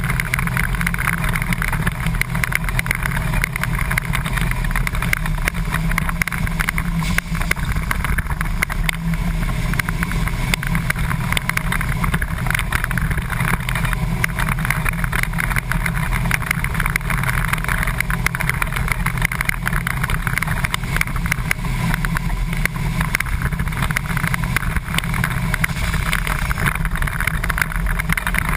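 Flat-nose school bus's engine running steadily under load as the bus is driven on the race track, heard from inside the cabin as a constant loud, dense mechanical drone with no let-up.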